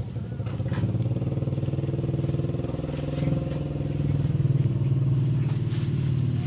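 A motorbike engine running at a steady, low speed, growing louder in the first second.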